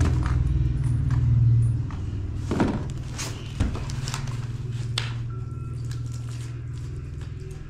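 A steady low hum with a few separate knocks and taps from hands-on building work, the knocks a second or so apart in the middle.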